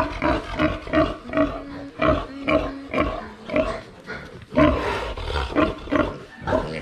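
Piglet held upside down by its hind legs, squealing in rapid, repeated short calls, a few per second, with a louder burst about four and a half seconds in.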